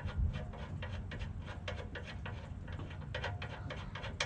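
Engine oil dripping into a drain pan, making an irregular patter of light ticks.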